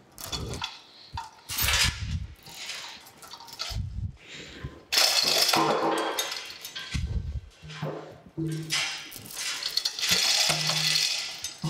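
Hand chain of a manual chain hoist rattling and clinking as it is pulled hand over hand to lower a heavy cast-iron mill table, with irregular bursts of metal clatter and a few low thuds.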